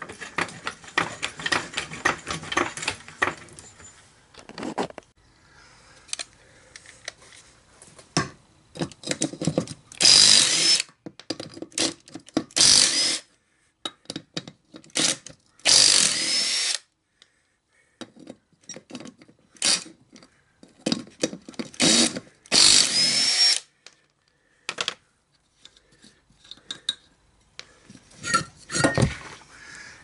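Cordless impact wrench running in several short bursts of about a second each, spinning the lug nuts off an ATV's front wheel, with a rising whine as each burst spins up.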